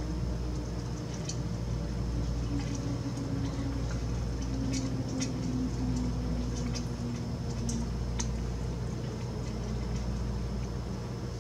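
Raccoons pawing and licking at a hanging feeder make scattered small clicks and ticks. Under them runs a steady low hum whose pitch slowly drifts down, with a steady high whine above.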